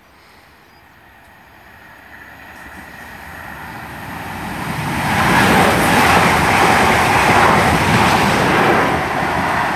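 Class 444 electric multiple unit passing through the station: the rush of the train on the rails builds over about five seconds, stays loud for several seconds, then eases slightly near the end.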